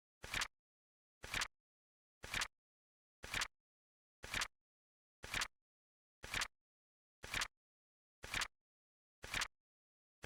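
Flip-clock timer sound effect: a short mechanical clicking flap once every second, about ten in all, each a quick double click.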